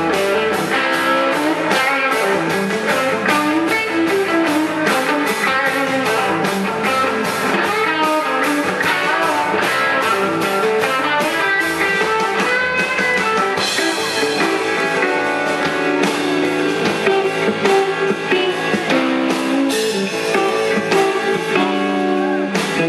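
A live band playing electric guitars over a steady drum beat.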